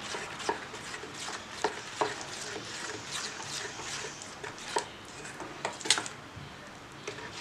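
Wire whisk beating wet flour batter in a stainless steel bowl: a steady wet stirring with irregular light clinks of the whisk against the bowl, the sharpest clink about six seconds in.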